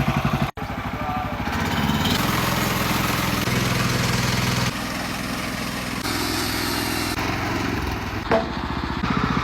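Woodland Mills portable band sawmill running under its gas engine, the band blade cutting lengthwise through a hemlock log. The steady engine note carries a hiss of sawing that changes in strength a couple of times.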